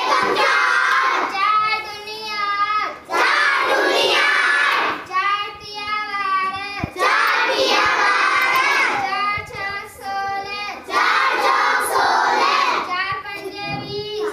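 A girl singing a song unaccompanied, in phrases, some of them ending in long held, wavering notes.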